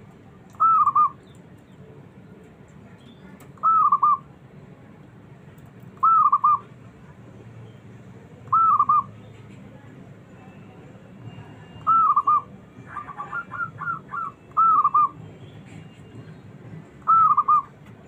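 Zebra dove (perkutut) cooing: short hooked calls of two or three quick notes, repeated about every two and a half seconds. A quicker run of short notes comes about two thirds of the way through. This is the small bird's challenge song, calling out for a rival to answer.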